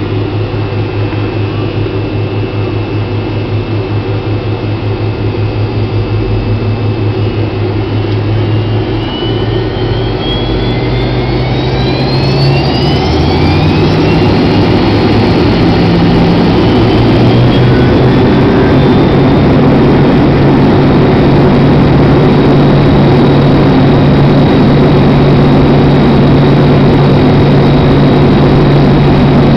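Airliner turbofan engine, heard from inside the cabin right beside it, spooling up to takeoff power. About ten to fourteen seconds in, a whine rises in pitch and the engine grows louder, then it runs steady and loud at high thrust.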